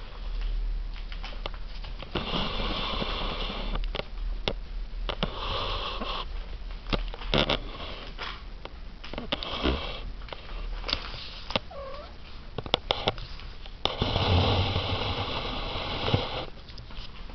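Cats close to the microphone making breathy, rasping noises in bursts of one to two seconds, the longest and loudest near the end, with scattered small clicks and a faint short call in between.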